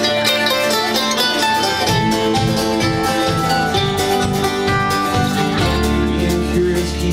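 Live folk band playing an instrumental passage of guitars and plucked strings, with drums. A deep bass line comes in about two seconds in and fills out near the end.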